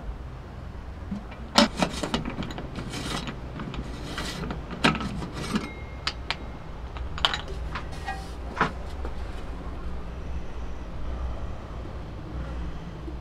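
Sharp metallic clinks and knocks of an aluminium can and its lid being handled and opened, clustered between about one and a half and nine seconds in, over a low steady background.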